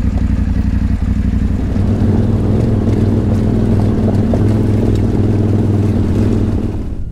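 Adventure motorcycle engine running steadily as the bike rides a rocky dirt track, its note growing a little louder about two seconds in.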